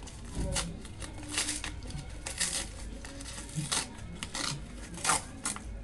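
A small postal packet being torn open by hand: short rips and crinkles of the packaging, half a dozen or so, with rustling between them.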